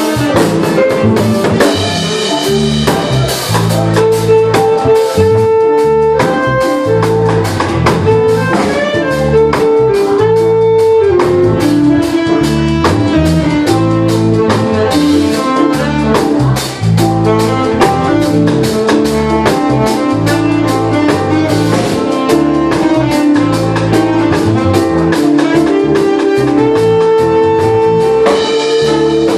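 Jazz fusion band playing live: a saxophone holds a melody of long notes over drum kit and a low bass line.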